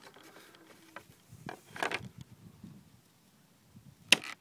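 Handling sounds from the wooden frame of a folding kayak being taken apart: a short scrape about two seconds in, then a single sharp click near the end as a clip on the plywood panel is pressed.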